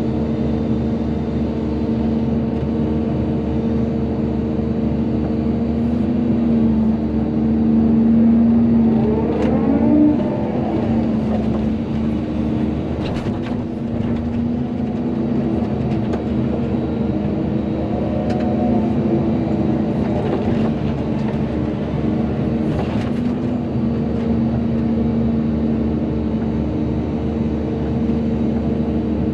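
Volvo EC220DL excavator's diesel engine running steadily, its pitch bending and wavering as the hydraulics take load about a third of the way in and again past halfway, with a few sharp knocks.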